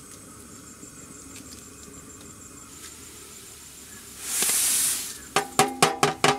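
Raw rice poured from an aluminium plate into a large aluminium pot of hot water: a rushing hiss of grains lasting about a second. Then about five quick metallic knocks with a ringing tone, the plate knocking against the pot.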